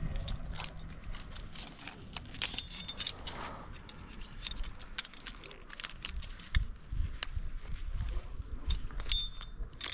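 Metal climbing hardware, carabiners and quickdraws, clinking and jingling in many small clicks with brief metallic rings as the anchor is cleaned before rappelling.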